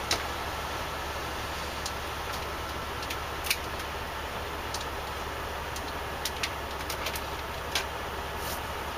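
Steady low engine drone, heard inside a truck cab, with a few light clicks and taps of things being handled.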